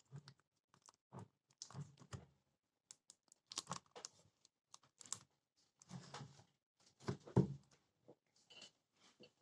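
Packaging being handled while a tool is unboxed: irregular rustling, tearing and light knocks.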